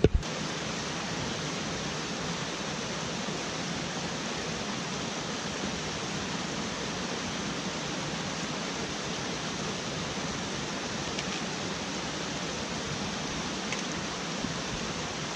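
Rushing mountain stream: a steady, unbroken wash of water pouring over rocks.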